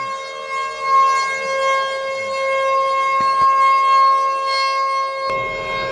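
Outdoor tornado warning siren sounding very close by: one steady pitched tone that swells and fades in loudness, sounding for a tornado warning.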